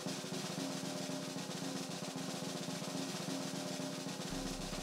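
A music cue built on a steady snare drum roll, with a sustained note held underneath.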